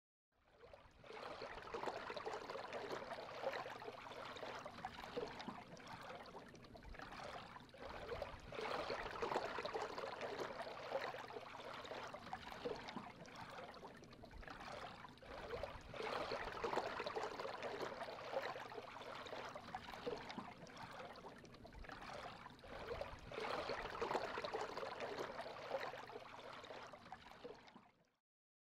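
Water washing in slow swells, rising and falling away about every seven seconds; it fades in at the start and fades out near the end.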